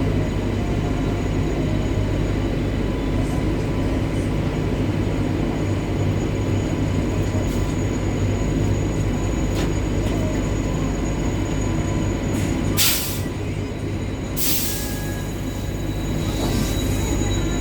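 Train hauled by a WAG-9 electric locomotive running on the rails, heard on board: a steady low rumble with faint steady whines. Two short hisses come about 13 and 14.5 seconds in.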